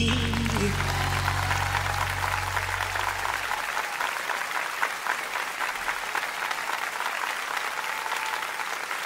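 Studio audience and coaches applauding, dense steady clapping. Under the first three or four seconds the song's final low note rings out and fades away.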